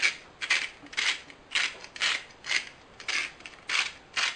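Hand-held salt grinder being twisted back and forth, grinding salt in short crunching strokes, about two a second.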